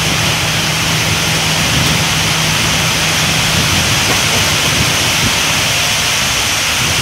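Steady loud hiss of heavy rain over the river, with a low engine hum from a small motorboat fading away over the first few seconds.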